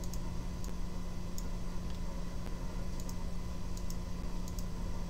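Scattered computer mouse clicks, about eight sharp separate clicks at uneven spacing, over a steady low hum and hiss.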